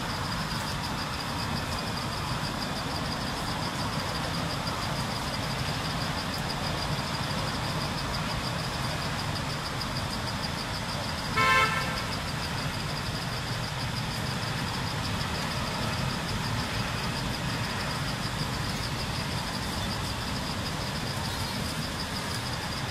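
A vehicle horn gives one short toot about eleven seconds in, over a steady low rumble of passing traffic and a constant high-pitched buzzing.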